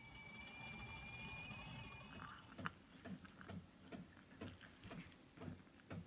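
Stovetop kettle whistling with a steady high tone of several pitches for about two and a half seconds, then cutting off suddenly. After it, hot water is poured from the kettle into a mug with a metal mesh tea-infuser ball, with soft irregular splashes and knocks.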